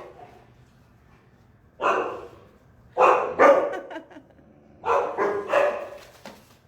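Dogs barking in shelter kennels: one bark about two seconds in, two more a second later, then a quick run of barks near the end.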